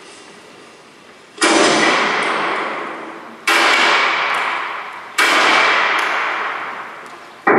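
Three sudden loud bangs about two seconds apart, each dying away before the next, from a recording of war sound effects played back in a spoken-word-and-music montage.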